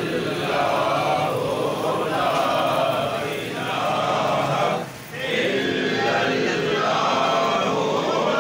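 A group of men chanting together in long, held phrases, with a short break for breath about five seconds in.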